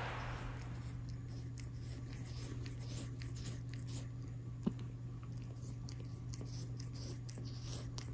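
Cat licking a person's hand right at the microphone: a quick run of soft, wet rasping clicks from its tongue, with one sharper click about halfway through, over a steady low hum.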